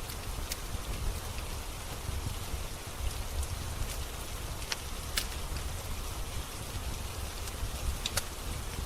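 Steady rain with a low rumble underneath, and a few sharp, scattered crackles from a wood fire in a fireplace.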